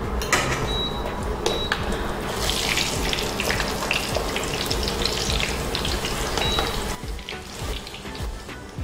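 Bhatura dough deep-frying in hot oil in a steel kadhai, sizzling and crackling; the sizzle grows loud a couple of seconds in while a slotted spoon presses the bread down so it puffs, and eases near the end.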